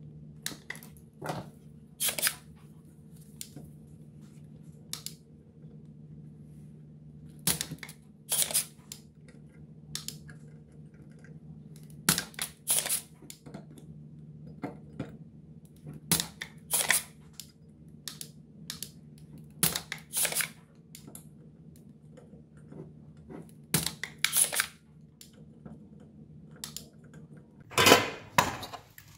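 Spring-loaded desoldering pump snapping again and again as its plunger is released to suck solder off the IGBT pins, the snaps often in pairs. A steady low hum runs underneath.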